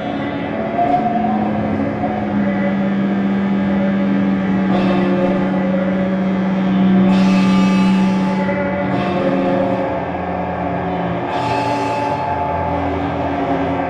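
Amplified prepared electric guitars playing an experimental drone improvisation: layered sustained ringing tones over a low held note, cut through four times by bursts of hissing noise, the longest and loudest about halfway through.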